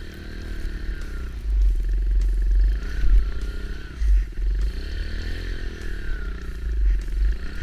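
Kawasaki KLX110 dirt bike's small air-cooled single-cylinder four-stroke engine being ridden through snow, its revs rising and falling back about four times.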